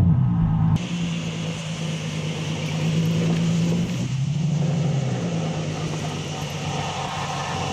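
Nissan 300ZX's V6 engine running steadily while the car drives, its pitch dipping briefly and coming back midway. A hiss of road or wind noise comes in suddenly about a second in.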